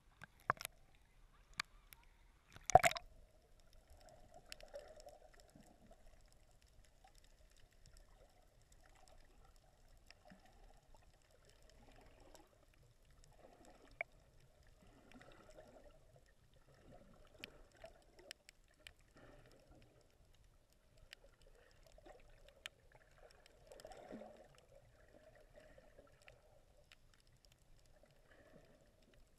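Water splashing against a camera as it breaks the surface, in a few sharp splashes with the loudest about three seconds in. Then faint, muffled underwater sound with scattered small clicks.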